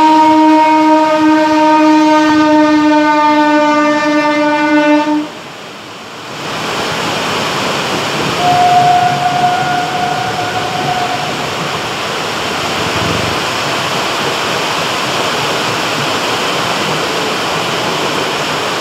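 WAP-4 electric locomotive's horn sounding one long steady note that cuts off about five seconds in. After it, a steady dense rush of heavy rain and passenger coaches rolling past, with a brief, fainter higher tone a few seconds later.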